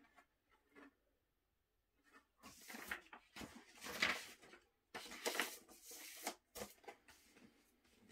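A vinyl LP being slid into its inner sleeve, the sleeve then handled: irregular rustling and scraping of the sleeve with a few light knocks, starting about two and a half seconds in and dying away near the end.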